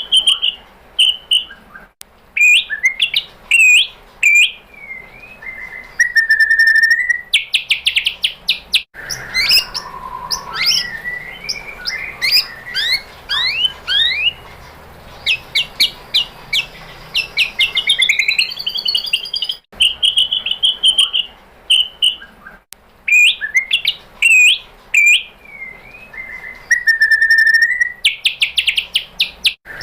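White-rumped shama (murai batu) singing in full voice: loud, varied whistled phrases of rising and falling notes and fast trills, with the same phrases recurring about twenty seconds apart.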